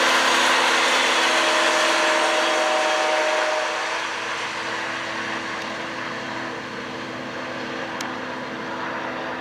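Amtrak Capitol Corridor passenger train passing on the rails: a diesel locomotive running steadily under a haze of wheel and rail noise, loudest for the first few seconds and then dropping down about four seconds in as it moves away.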